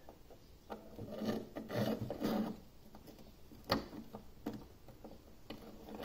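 Small workbench handling noises: a thin metal rod scraping and rubbing against a plastic bracket and heatsink as it is fitted, with a few sharp clicks, the loudest a little past the middle.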